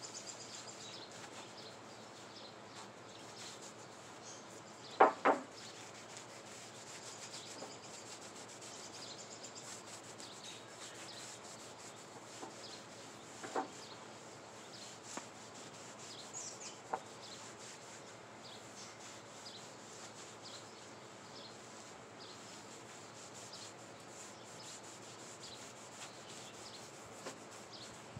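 Wood stain being rubbed onto a wooden 2x4 fence board: a soft, steady scrubbing on the wood. Two loud knocks come close together about five seconds in, and a few lighter knocks follow later.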